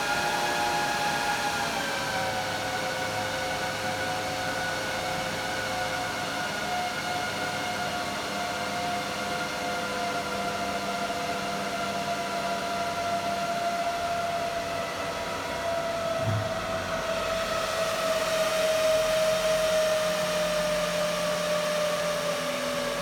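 HP ProLiant ML350 G6 server's cooling fans running at speed during power-up, a loud steady whine. The whine steps down in pitch about two seconds in, then slowly winds lower as the fans throttle back.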